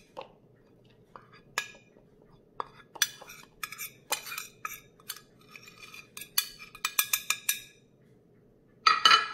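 Metal spoon clinking and scraping on a ceramic plate as ground spices are pushed and tapped off it into a bowl, with quick runs of taps. A louder clatter of the spoon in the bowl near the end.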